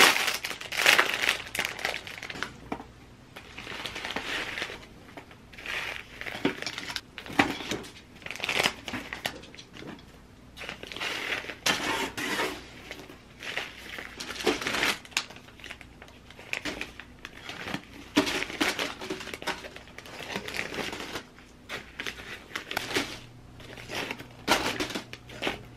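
Clear plastic sealing bags crinkling and rustling as homemade granola is scooped into them, the clusters crunching and rattling, in irregular bursts of handling noise.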